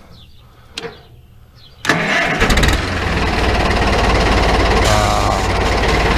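Cummins four-cylinder turbo diesel in a Farmall M tractor starting: a single click about a second in, then a couple of seconds in it cranks, catches and settles into a steady run.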